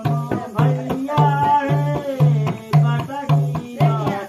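Folk song with a barrel hand drum (madal) beating a steady low stroke about twice a second, and a voice singing over it.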